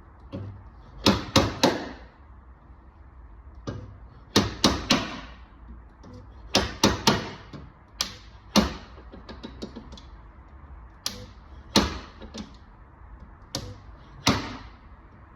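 Slide hammer on a stud-welder dent puller knocking in short groups of two or three sharp blows, pulling a dented car sill back out.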